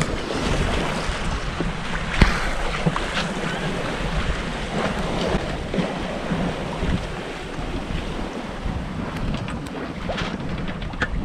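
Wind buffeting the microphone over waves washing along the hull of a sailboat under sail, with a single sharp slap about two seconds in.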